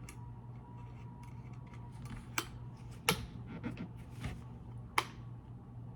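A handful of short, sharp clicks and taps, spaced irregularly, as the retaining bolt and blade are fitted back onto an oscillating multitool, over a steady low hum.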